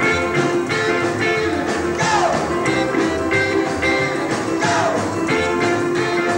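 Live rock and roll band playing, with a singer over upright double bass, saxophone, electric guitar and drums.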